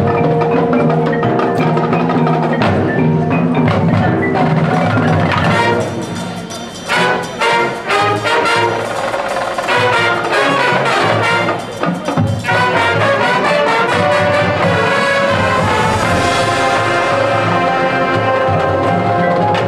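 Marching band playing a field show: brass chords over a front ensemble of marimba, xylophone, glockenspiel and drums. The brass thins out briefly about six seconds in and again near twelve seconds, leaving the struck mallet notes more exposed, then a full held chord builds near the end.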